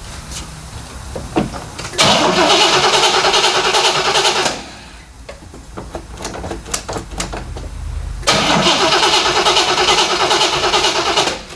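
1970 Corvette's 350 small-block Chevy V8 cranked over twice on the starter, each time for about three seconds, turning over evenly but not catching, a no-start. Scattered light clicks between the two tries.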